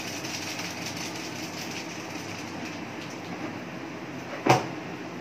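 Steady rushing noise of a gas stove with a pan of chow mein cooking on it, and one sharp knock about four and a half seconds in.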